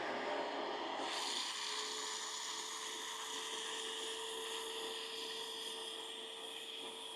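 Small electric motor whirring at a steady pitch over a hissing noise, a powered tool at work cleaning a car's headliner; the sound grows brighter about a second in and holds steady after that.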